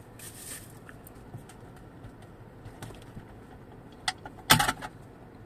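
Plastic sensor cover on a Toyota C-HR's windshield being pulled off its mount by hand: a small click about four seconds in, then a loud sharp snap as its two retaining tabs let go.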